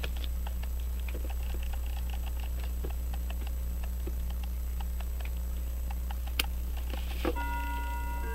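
Faint, irregular small clicks from a key and fingers working the arbor of a verge fusee pocket watch movement as its mainspring is let down, over a steady low hum. There is one sharper click about six seconds in, and a bell-like chime starts near the end.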